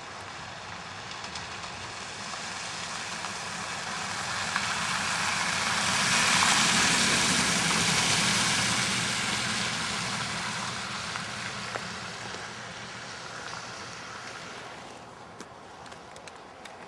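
A pickup truck driving past. Its tyre hiss and engine noise swell as it approaches, are loudest about seven seconds in as it goes by, then fade as it drives away.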